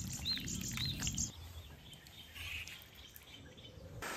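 A small bird chirping, a few short arching high notes in the first second, over faint outdoor background noise.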